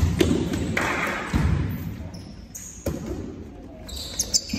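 A volleyball being played in a rally, with several sharp smacks of hands and arms striking the ball, echoing around a large hall. Near the end there are brief high squeaks of trainers on the court floor.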